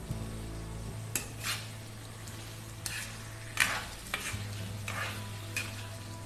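A spatula stirring chicken pieces through a tomato-onion masala in a nonstick pan, with a light sizzle of frying. It scrapes the pan in about seven short strokes, the loudest about three and a half seconds in, over a low steady hum.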